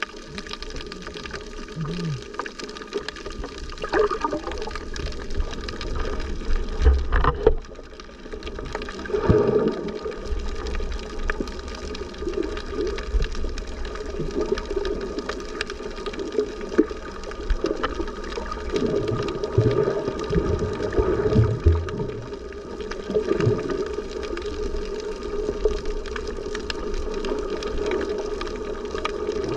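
Muffled sloshing and gurgling of sea water around a camera held in or at the surface of the sea while snorkeling, with a steady low rumble and repeated swooshing surges.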